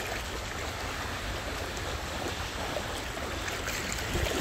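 Small waves lapping steadily at the water's edge, with a low rumble underneath.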